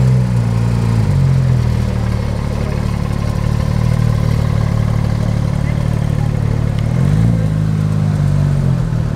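Porsche 911 GT3's naturally aspirated flat-six running at low revs as the car creeps past, loud and steady. The revs are held up at the start and drop back about a second in, then rise again about seven seconds in and fall back near the end.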